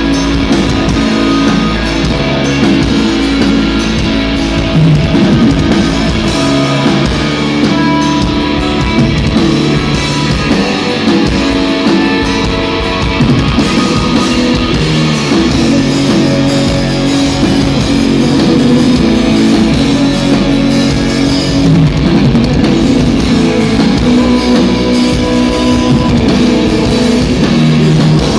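A metal band playing live: electric guitars, bass guitar and a drum kit, loud and dense.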